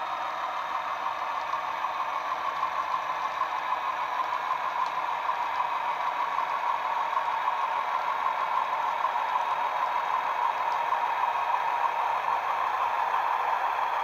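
Class 31 diesel engine sound from a Soundtraxx Econami ECO-100 decoder, played through the small 24x30 bass-enhanced speaker inside a Hornby OO-gauge Class 31 model as it runs along the track. The engine note is steady and grows slightly louder as the model comes closer.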